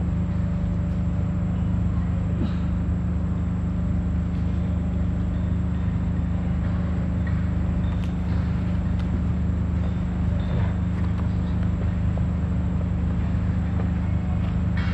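A steady, unchanging low drone from a running engine or motor.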